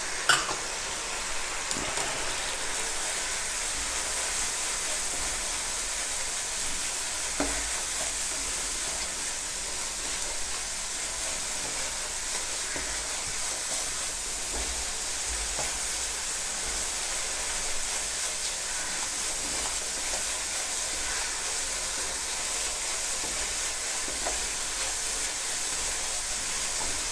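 Ground spices and pickle frying in an oily tomato-onion masala in a pan, a steady sizzle with stirring and a few short knocks.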